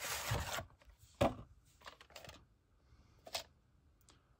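A VHS cassette being slid out of its cardboard sleeve and handled: a brief scraping rustle at the start, then a few light plastic clicks and taps.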